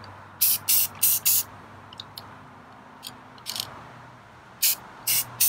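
Aerosol can of Krylon clear acrylic spraying in short hissing bursts, four in quick succession in the first second and a half, one about halfway through and three near the end, as a final clear coat is laid over inkjet waterslide decals.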